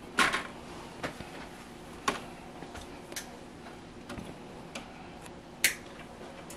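Irregular small clicks and taps from hands fitting thermostat wires into the terminals of a Taco zone control panel's circuit board, with the sharpest click about five and a half seconds in.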